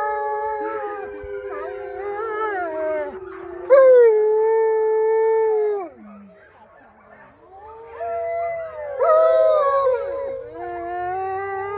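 Several wolfdogs howling in chorus: long, overlapping howls held at different pitches. The chorus is loudest from about four to six seconds in, dips briefly, then builds again.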